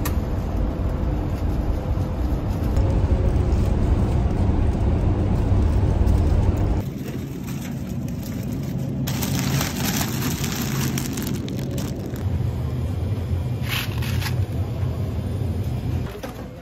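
A car on the move, heard as a steady low road and engine rumble, heaviest for the first seven seconds and lighter after, with brief bursts of broad noise in the middle.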